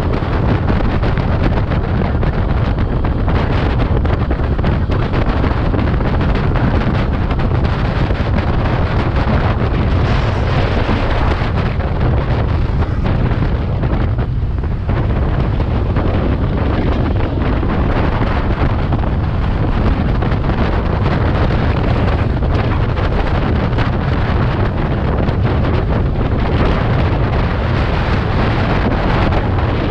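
Loud, steady wind noise rushing over the microphone of a scooter ridden at about 60 km/h, a dense low rumble with no clear engine note standing out.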